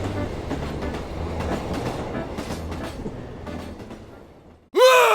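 Train carriage running with a steady rumble and clickety-clack of the wheels, fading away over the last second or so. Near the end comes a man's very loud, voiced sneeze, its pitch rising then falling, which cuts off abruptly.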